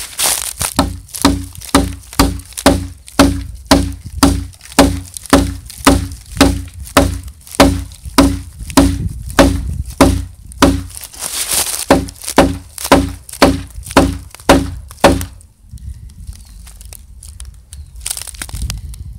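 Hatchet chopping into a very hard log: a steady run of strikes about two a second, each a sharp knock with a short ring. The chopping stops about fifteen seconds in, leaving only quieter rustling in dry leaves.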